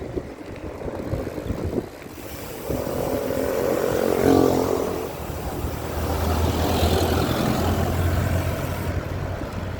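Wind rushing over the microphone on the move, with a motor vehicle's engine going by, loudest a little before halfway, then a steady low engine hum.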